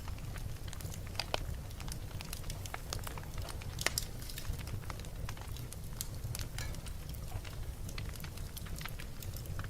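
Fire in a fireplace crackling, with a steady run of small snaps over a low rumble. A louder pop comes about a second in and another about four seconds in.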